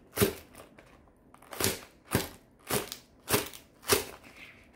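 Knife slicing diagonally through a bundle of green onion stalks onto a plastic cutting board: six sharp cuts, one just after the start, then after a pause of about a second five more at roughly two a second.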